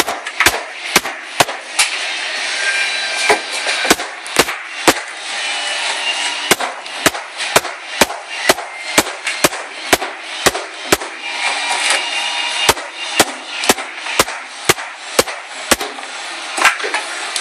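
Hammer blows on a wooden subwoofer enclosure being broken apart, about two sharp strikes a second with a few short pauses, and a rough steady noise between the blows.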